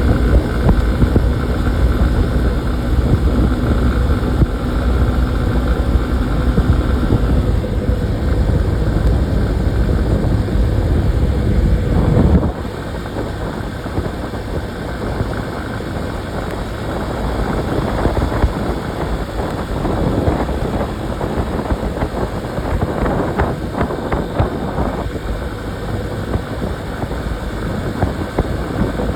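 Motorcycle ride heard through a phone microphone: the engine runs with a strong low sound under wind and road noise. About twelve seconds in, the low engine sound drops away and mostly wind and road noise remain.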